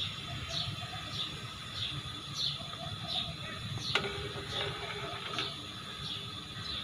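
A bird's high, falling chirp, repeated every half second or so, over a steady low rumble. A single sharp clink, a spoon against the pot, comes about four seconds in.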